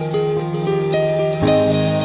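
Background music: plucked guitar notes over sustained tones, with a new chord coming in near the end.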